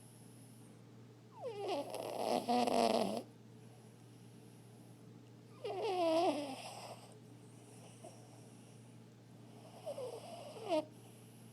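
A chihuahua-mix dog snoring three times, about four seconds apart. The first snore is the longest, and each one carries a wavering pitched tone.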